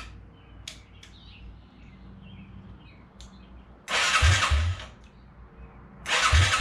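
Yamaha TT-R225's electric starter cranking the single-cylinder engine in two short bursts of about a second each, the engine turning over with a pulsing chug but not firing, with no fuel in it yet.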